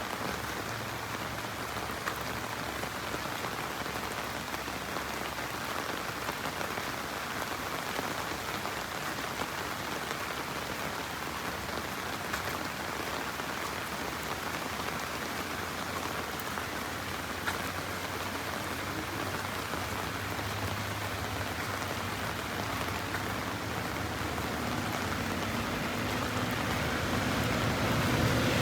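Steady heavy monsoon rain falling on a road, with scattered individual drop taps. Near the end a vehicle approaches on the wet road, its engine hum and tyre noise growing steadily louder.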